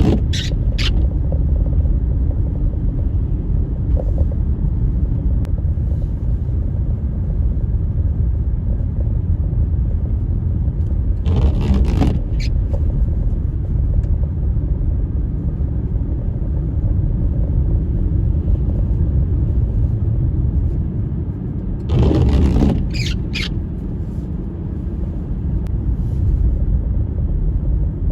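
Blizzard wind buffeting the microphone: a steady low rumble, with two brief louder gusts that add a hiss.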